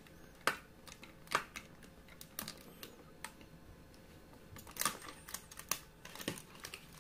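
Scattered sharp clicks and snaps, roughly one a second and loudest about five seconds in, as an Ingco utility knife blade cuts and pries at a stiff clear plastic blister pack.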